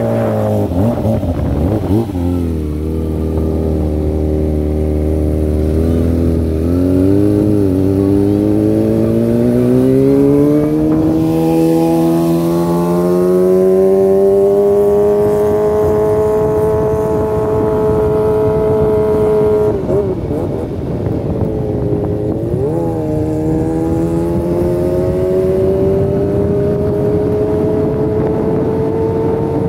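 Kawasaki Ninja sport bike with an aftermarket Yakuza exhaust, revving high through the gears on the move. The pitch climbs and holds high, dipping briefly at several upshifts before climbing again.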